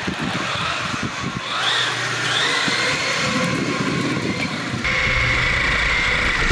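Electric drive motor of a 1/10-scale RC race car whining as it runs along a hard hallway floor. Its pitch rises about a second and a half in, then from about five seconds in a steadier whine sits over a low rumble.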